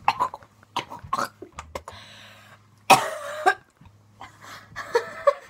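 Girls coughing and gagging in a string of short, irregular bursts, the loudest about three seconds in: a reaction to a foul-tasting jelly bean.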